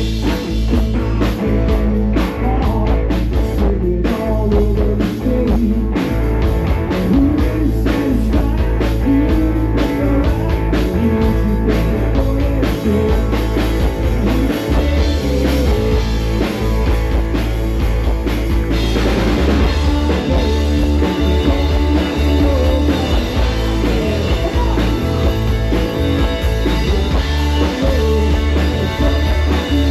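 Live rock band playing: electric guitar over drum kit and bass, with the cymbals growing louder about two-thirds of the way through.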